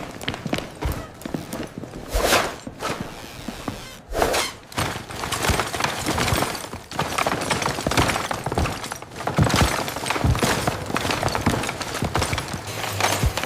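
Demolition and building work: a rapid run of knocks, thuds and crashes of breaking material, one after another.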